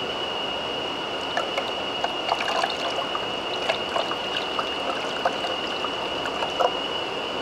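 Water poured from a plastic jug into a clear acrylic tank, trickling and splashing, with scattered small splashes. A steady high-pitched whine sits underneath.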